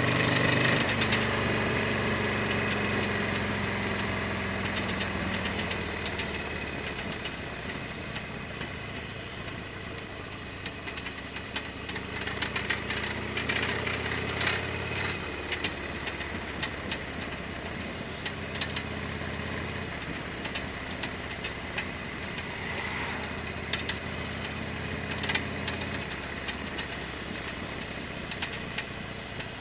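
Harley-Davidson XL1200R Sportster's air-cooled 1200 cc V-twin running, easing off and getting quieter over the first several seconds, then holding a steady lower note with a few shifts in pitch. Scattered sharp ticks and rattles come through from about twelve seconds in.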